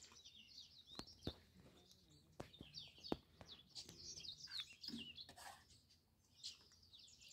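Faint chirping and twittering of small birds throughout, with a few sharp clicks of a serving spoon on plates and pots during the first few seconds.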